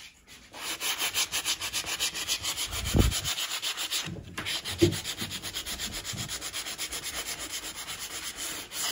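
Hand sanding a wooden trim strip with sandpaper on a small block: quick, even back-and-forth strokes, about five a second, with a short pause about four seconds in and two low knocks.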